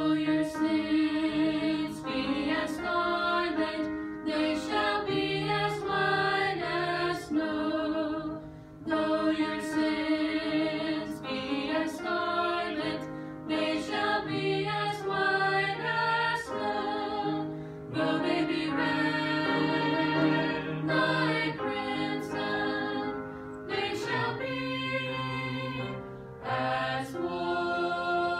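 A small mixed vocal group, three women and a man, singing a hymn in harmony, phrase by phrase with short breaks between lines.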